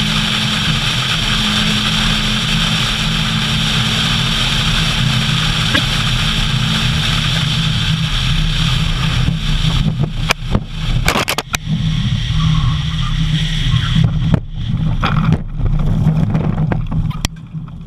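A car's engine and road noise heard from inside the cabin at speed. From about ten seconds in come a run of sharp knocks and jolting thuds as the car runs off the road and crashes through roadside bushes and trees.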